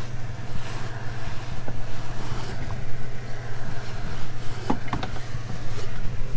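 Shop fan running with a steady low hum and rushing air. A couple of light clicks about five seconds in.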